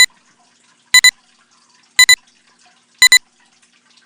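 Electronic double beeps: a pair of short, high-pitched tones repeating about once a second, like a digital alarm clock.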